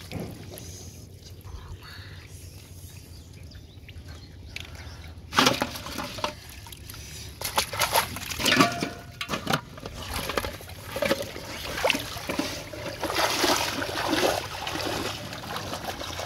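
Water splashing and sloshing as a plastic-bottle fish trap is lifted from shallow pond water and emptied, water pouring and splashing out of the bottle in uneven bursts. It starts about five seconds in, after a quiet stretch.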